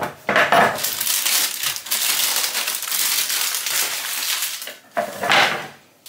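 Baking paper crinkling and rustling as it is peeled back and pushed around a baking tray, with a short pause and then another crinkle about five seconds in.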